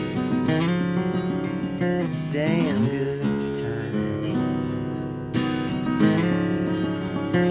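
Acoustic guitar playing a mix of strummed chords and picked notes, with one note sliding up and back down about two to three seconds in.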